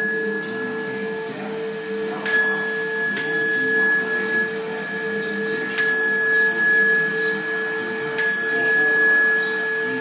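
Small metal ritual bells struck four times, about 2, 3, 6 and 8 seconds in, each strike ringing on bright and high, over a steady ringing drone.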